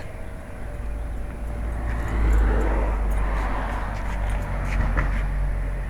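A vehicle passing by: a low rumble with tyre and road noise that swells to its loudest about two seconds in, then slowly fades.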